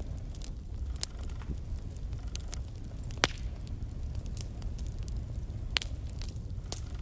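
Wood fire burning in a fireplace: logs crackling with scattered sharp pops, two louder ones about three and six seconds in, over a steady low rumble of the flames.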